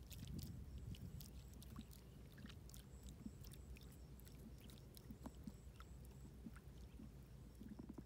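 Faint splashing of a fish wriggling in a shallow muddy puddle, with many small scattered clicks and drips over a low steady rumble.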